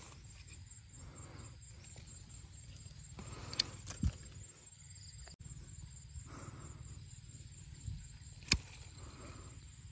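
Bypass pruning shears snipping small durian branches: sharp single clicks, two close together about halfway through and one more near the end. A faint steady high insect drone and a low rumble run underneath.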